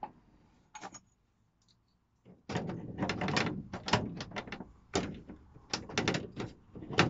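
Metal clicks and knocks as pliers work the autovent's metal arm and bracket against an aluminium greenhouse window frame: a few separate clicks at first, then after a couple of seconds a quick, irregular run of clicking and rattling.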